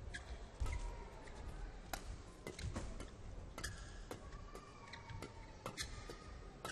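Badminton rally: sharp clicks of rackets striking the shuttlecock back and forth at an irregular pace, with short squeaks of court shoes on the floor and thuds of footwork.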